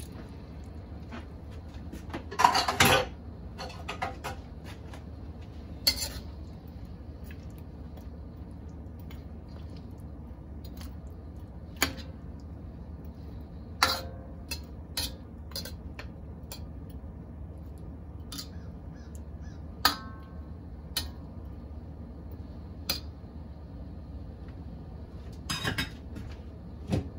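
A metal ladle clinking and scraping against a steel wok as braising ribs and potatoes are stirred and basted, in scattered single clinks over a steady low hum. There is a longer, louder burst about two and a half seconds in as half a cup of water goes into the wok, and a short cluster of clinks near the end.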